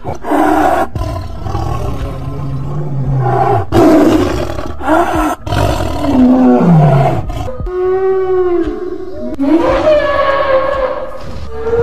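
Imagined sound effects for extinct animals: a Smilodon (saber-toothed cat) roaring and snarling several times in loud, rough roars. About eight seconds in these give way to two long, deep tonal calls given to a Brachiosaurus, the first rising and then falling in pitch and the second falling.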